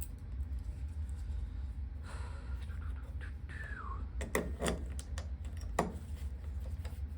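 A key clicking and rattling in the stiff, seized fuel filler lid lock of a Jaguar XJ as it is tried without success: a few sharp metallic clicks near the end, over a steady low hum.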